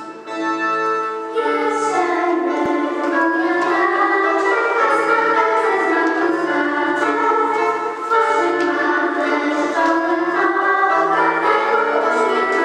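Music with voices singing, getting louder about a second and a half in.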